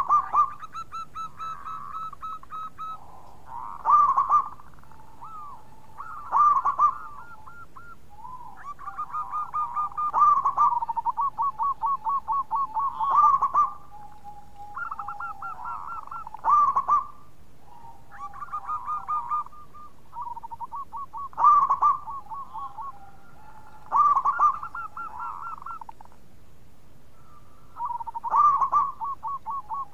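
Zebra doves (perkutut) cooing. Phrases of fast, even staccato coos, each with a loud accented note, recur every two to four seconds, and calls at two slightly different pitches overlap, as more than one dove answers.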